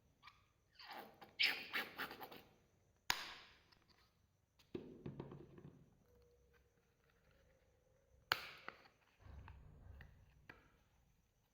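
Hands working soft clay slime: crackly, sticky stretching and squishing, with a couple of sharp clicks and soft thumps in between.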